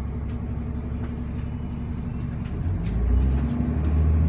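Engine of a road vehicle heard from inside the cabin, idling steadily and then growing louder as the vehicle pulls away, about two-thirds of the way in.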